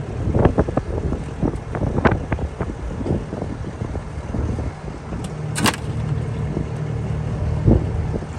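Bobcat skid steer engine running steadily, with a series of knocks and clunks and one sharp bang a little past halfway.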